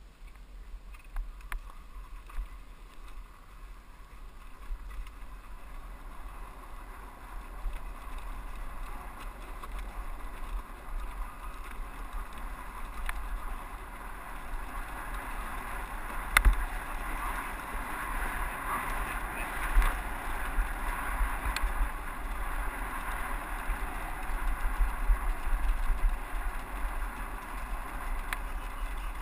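2001 KTM 200EXC two-stroke dirt bike riding along a rough mountain-ridge trail, heard muffled through a GoPro with low wind rumble on the microphone. It grows louder over the first several seconds as the bike gets moving, and there are a few sharp knocks from the bike jolting over the rocky ground.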